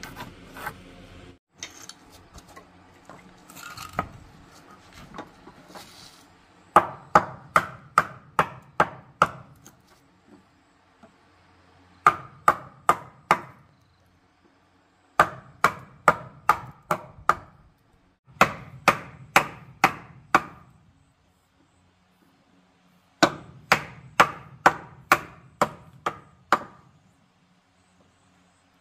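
Wooden mallet striking a steel chisel to chop a mortise in a wooden plank: after a few seconds of quieter handling, rapid runs of sharp knocks, about three to four a second, come in bursts with short pauses between.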